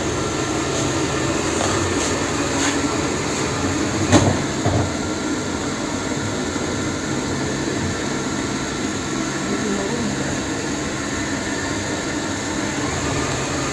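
Xiaomi robot vacuum cleaner running steadily, its motor and brushes making a continuous hum, with a single knock about four seconds in.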